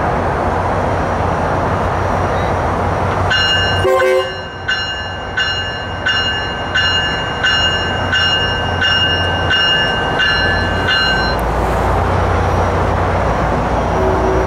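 Tri-Rail commuter train's bell ringing in a steady rhythm, about one and a half strokes a second, for about eight seconds, over the low rumble of the train. The rumble swells near the end as the train begins to move.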